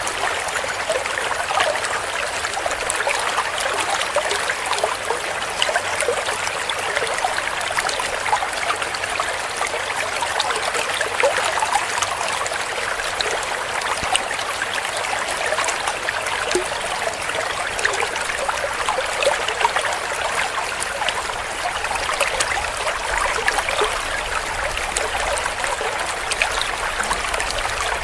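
Shallow stream of water trickling and gurgling over stones, a steady bright splashing with many small droplet ticks and little low rumble.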